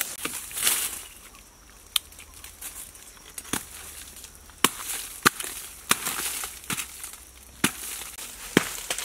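Rustling of dry leaves at first, then a hand tool chopping into a rotting log: about eight sharp knocks, roughly one a second, starting about two seconds in.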